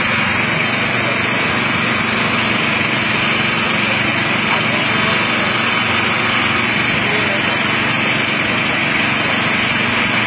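Small engine running steadily at one constant pitch, with people's voices under it.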